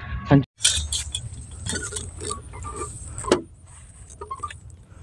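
Handling noise of a scoped air rifle being aimed: scattered small clicks and knocks, with one sharp, loud click about three seconds in, over a faint steady high whine.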